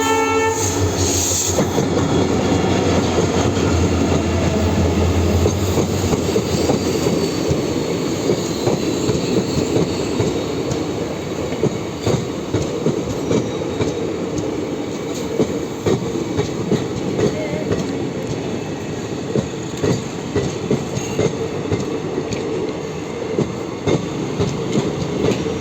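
A WDP-4D diesel locomotive's horn cuts off about half a second in, and the passenger train runs past. A low drone lasts for the first six seconds or so, then the coaches' wheels clack over rail joints, more sharply and more often in the second half.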